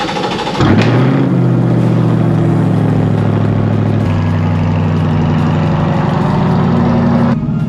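Chevrolet C8 Corvette's V8 just after start-up: the revs flare about half a second in, then settle into a steady, loud high idle.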